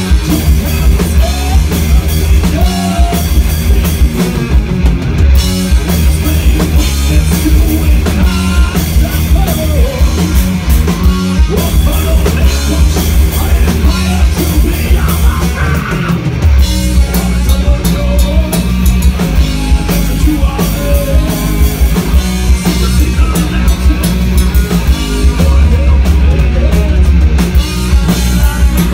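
Live heavy rock band playing loud: distorted electric guitars, electric bass and a drum kit, with a male singer singing into the microphone.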